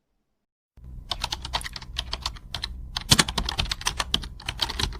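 Fast, irregular clicking of typing on a keyboard over a low steady hum, starting abruptly about a second in.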